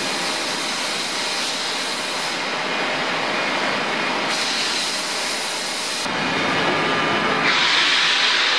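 Webster & Bennett 72-inch CNC vertical boring and turning machine running: a steady mechanical hiss and whir. Its highest part drops away and returns a couple of times, and it grows louder and brighter near the end.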